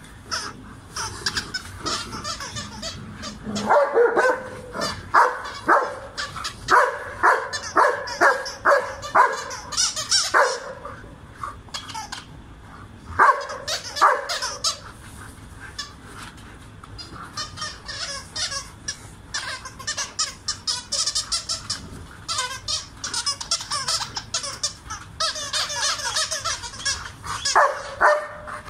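Old English Sheepdogs barking on a "speak" cue: a run of short barks about two a second for several seconds starting about four seconds in, two more around the middle, and a couple near the end.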